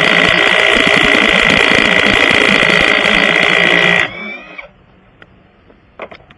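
Impact wrench hammering hard on a wheel lug nut in a loud, steady rattle for about five seconds, then stopping about four seconds in with a short falling whine as the motor spins down.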